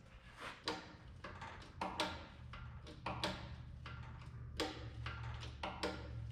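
Irregular sharp metallic clicks and knocks of tools and parts being handled during tractor reassembly, over a steady low hum that grows stronger about two and a half seconds in.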